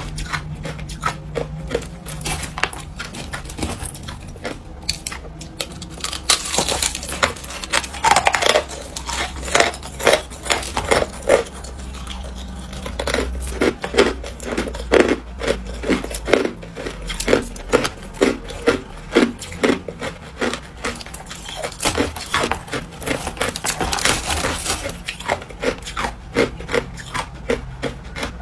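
Hard frozen crushed ice being bitten and chewed: runs of sharp, brittle crunches, several a second, with thinner stretches between the runs.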